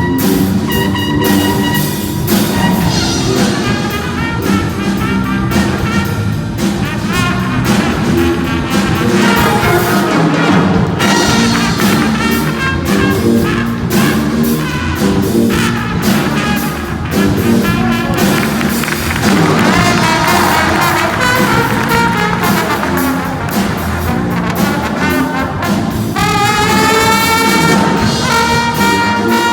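Funk music: a drum kit plays a busy groove under a brass section of trumpets and trombones, with a rising horn run near the end.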